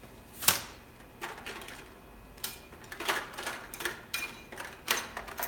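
Small items clicking and rattling in an open metal tin as they are handled and sorted by a gloved hand, in a string of separate clicks and clacks. The loudest is a sharp clack about half a second in.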